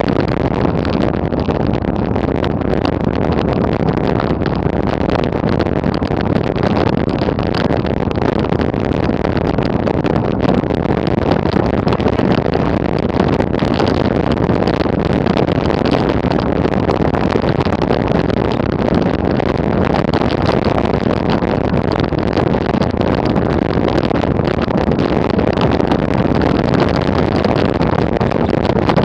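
Steady wind rumble on an action camera's microphone as a mountain bike coasts fast down a gravel track at about 25 km/h, with the tyres crunching and rattling over loose stones.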